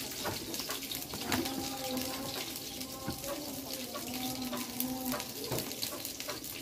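Tomatoes and chillies sizzling and crackling in a hot grill pan on a gas stove: a steady hiss studded with small pops. A faint drawn-out voice can be heard in the background.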